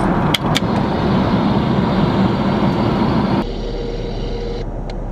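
Steady airliner cabin drone in flight, with two short clicks just after the start. About three and a half seconds in it drops to a quieter hum with a thin, steady whine for about a second, as the suite's motorized minibar door moves.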